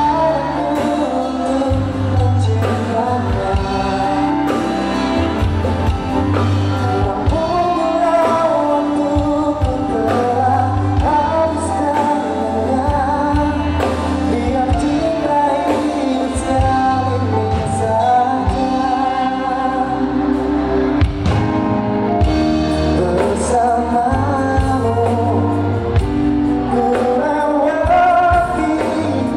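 Male pop singer singing live into a handheld microphone, backed by a live band with drums and bass keeping a steady beat.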